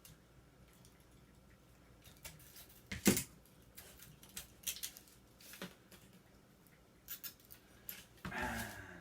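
Scattered clicks and taps of hand tools working on a small transformer, with one louder sharp click about three seconds in and a short scrape near the end.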